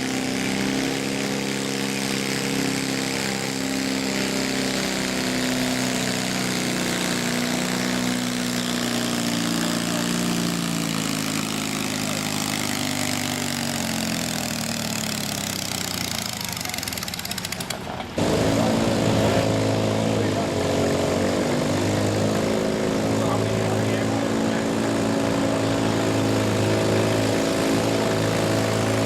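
Modified riding lawn mower engine running under pulling load, its pitch slowly falling over about fifteen seconds as it bogs down. About eighteen seconds in, the sound changes abruptly to a louder engine running at a steady, higher pitch.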